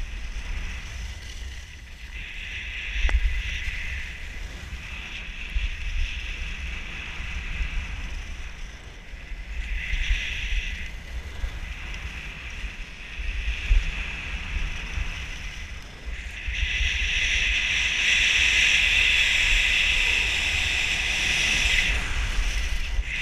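Wind buffeting the microphone of a camera carried by a downhill skier, under the hiss of skis scraping over packed snow. The scraping swells with each turn, then runs louder and steadier for several seconds about two-thirds of the way through.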